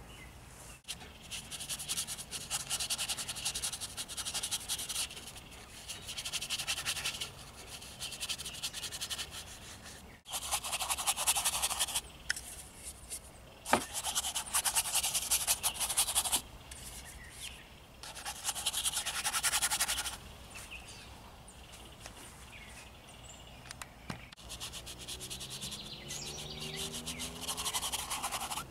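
Paintbrush scrubbing black oil paint onto a canvas in runs of quick strokes, each run lasting one to a few seconds, with short pauses between.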